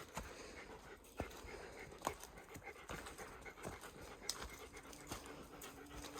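Dog panting steadily on a steep uphill climb, with footfalls on the trail about once a second.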